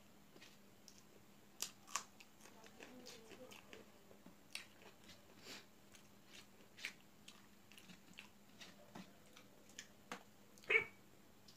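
Quiet eating sounds: chewing and lip smacks while fingers work rice and curry on a metal plate, as a string of small scattered clicks. One louder, sharper click comes near the end.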